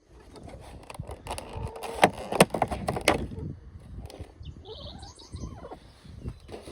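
A cluster of sharp knocks and rattles with a short creak, then a bird's brief, high, rapid chirp a couple of seconds later.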